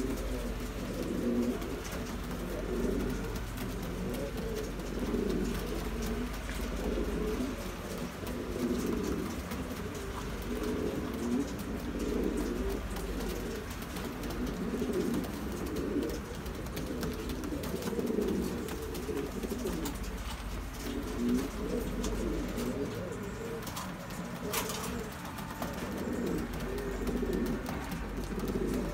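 Domestic pigeons cooing over and over in a low display coo, one phrase every second or two.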